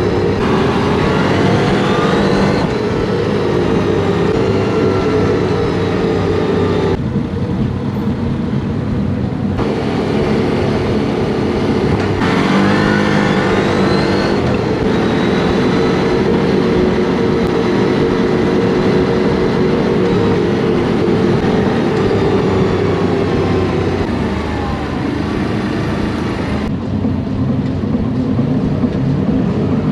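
Quad (ATV) engine running under way, recorded on board, rising in pitch a couple of times as it accelerates. The sound changes abruptly several times, as separate riding clips are cut together.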